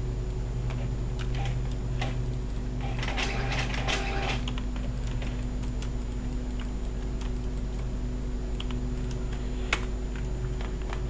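Computer keyboard and mouse clicking while working at a computer, with a quick flurry of clicks about three to four seconds in and one sharper click near the end, over a steady electrical hum.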